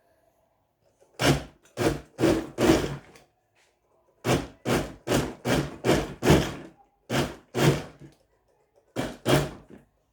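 Arno LSA blender motor run in short pulses: about fourteen brief whirring bursts in quick groups of four, six, two and two.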